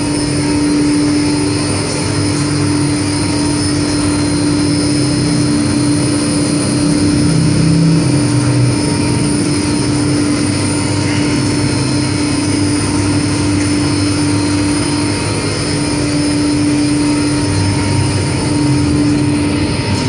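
Commercial laundry machine running: a loud, steady mechanical noise with a constant hum.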